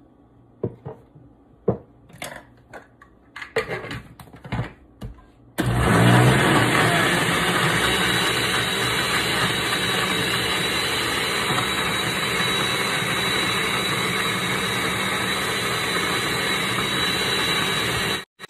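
Countertop blender switched on about five seconds in, spinning up and then running loudly and steadily for about twelve seconds as it blends frozen strawberry and banana chunks with milk into a thick smoothie, cutting off suddenly just before the end. Before it starts, a few short knocks and clicks.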